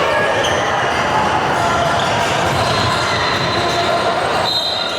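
Youth basketball game in a gym: a ball dribbling on the court over a steady din of crowd noise and voices.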